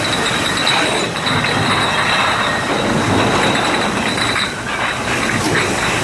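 MAG Schimannsky Sirio 7 bottle washing machine running: a steady mechanical din with metallic clicking and clanking of its drive and bottle carriers, over a continuous high whine.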